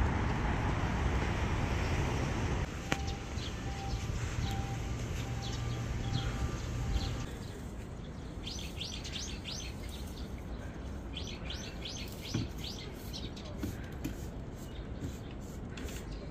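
Small birds chirping in quick runs of high notes, about five or six a second, coming in two bursts in the second half. A steady low rumble and hum fills the first few seconds and then drops away.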